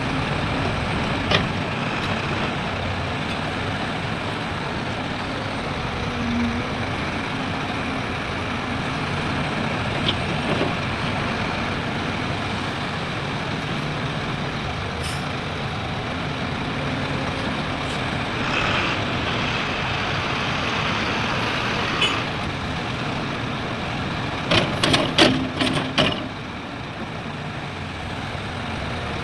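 Heavy diesel earthmoving machinery running steadily, with a few sharp clanks and a quick cluster of loud knocks about three-quarters of the way through.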